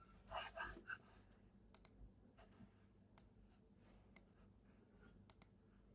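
Faint, scattered computer mouse clicks over near silence, with a brief louder patch of noise about half a second in.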